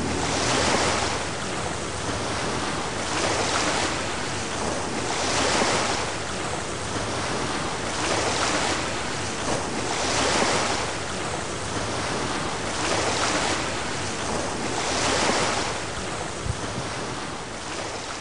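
Sea waves washing, a steady rush of water that swells and eases about every two and a half seconds.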